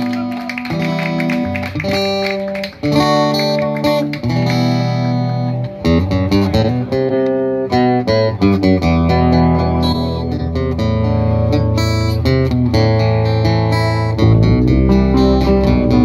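Live band playing a guitar-led instrumental passage of plucked and strummed guitar chords. A deep bass line joins about nine seconds in, and the sound fills out and grows louder near the end.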